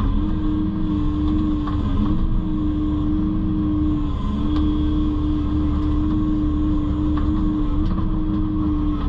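Engine of an earth-moving machine running at steady speed with a constant whine, which dips briefly about two seconds in and again about four seconds in, along with a few light clicks.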